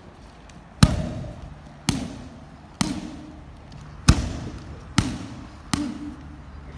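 Gloved strikes and kicks landing on Muay Thai pads: six sharp smacks about a second apart, each echoing in a large hall.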